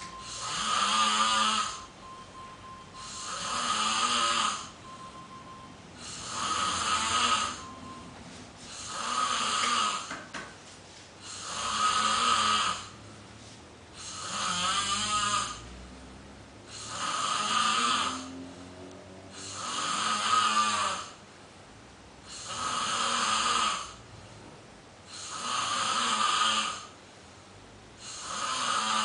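A sleeper snoring in a steady rhythm, one long rasping snore about every two and a half to three seconds, with quieter breathing between.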